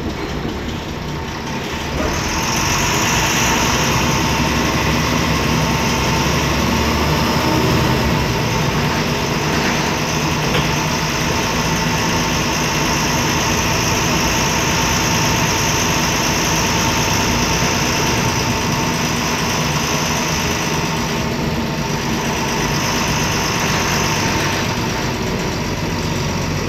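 MAN D0826 LOH inline-six turbo-diesel of a MAN Lion's Classic city bus running as the bus drives, heard from inside the cabin. It gets louder about two seconds in and then holds steady, with a steady whine over the engine.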